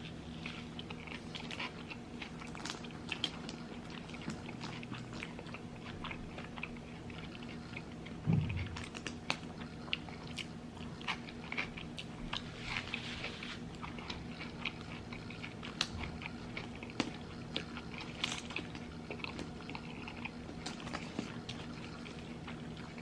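A person chewing a fast-food burger and fries with the mouth close to the microphone: irregular wet smacks and clicks, over a steady low hum. About eight seconds in comes one short, louder low throat sound that falls in pitch.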